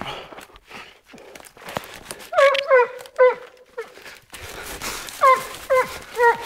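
Seven-month-old dog giving short, high-pitched yelping barks, each dropping in pitch. They come in two runs starting about two seconds in, seven in all, after a little rustling in the undergrowth.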